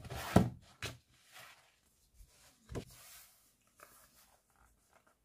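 A hardcover photobook and loose photo prints handled on a desk, with the hardcover laid down on top of the prints. A sharp knock about half a second in, a few smaller knocks, and paper rustling and sliding between them.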